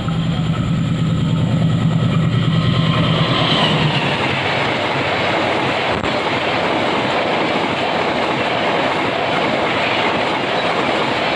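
Passenger train hauled by a CC 206 diesel-electric locomotive passing at speed. The locomotive's engine drone is strongest for the first three seconds or so, then gives way to the steady rush and clickety-clack of the coaches' wheels on the rails.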